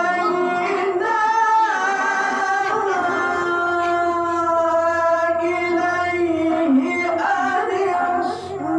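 A qori's high male voice reciting the Quran in melodic tilawah style into a microphone. He holds long, ornamented notes, with a short break near the end.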